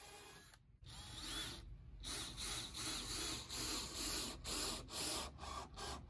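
Cordless drill working into a wooden deck board, run in a string of short spurts, about two to three a second.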